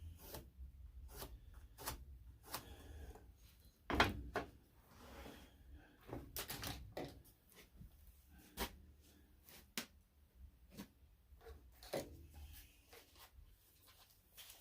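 Scattered knocks and clunks of wooden boards and tools being handled on a workbench, about a dozen separate hits, the loudest about four seconds in.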